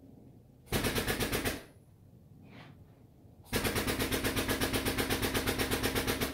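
Powered tube bender running as it bends roll-cage tubing: a rapid mechanical chatter of about ten pulses a second, in a short burst about a second in and a longer one starting about halfway through.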